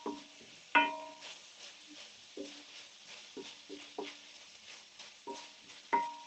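A utensil stirring curry in a large heavy pan, knocking against the pan about eight times so that the metal rings briefly after each knock, over a faint sizzle of frying.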